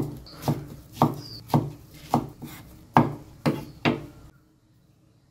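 Cleaver chopping Vietnamese pork roll (giò lụa) into thin strips on a wooden chopping board: a steady run of knocks of the blade on the wood, about two a second, stopping about four seconds in.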